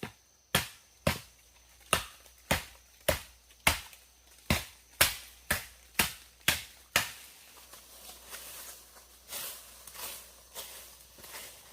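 Wood being chopped with a blade: about a dozen sharp, evenly paced strokes, roughly two a second. They stop about two-thirds of the way through, leaving softer rustling.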